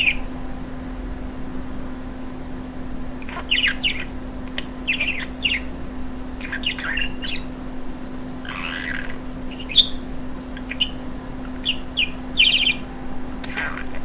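A budgerigar chattering: short bursts of quick, warbling chirps come every second or so, with a steady low hum underneath.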